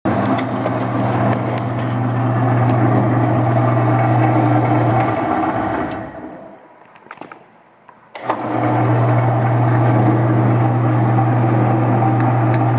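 Roll-In EF1459 vertical band saw with its 1 HP single-phase motor, running with a steady low hum. About five seconds in it winds down to near silence, and a little after eight seconds it starts up again sharply and runs on steadily.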